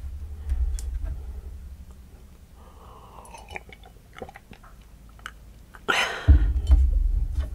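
Close-miked mouth sounds of a man drinking water from a glass: small wet clicks and soft swallows, then a loud breathy rush near the end.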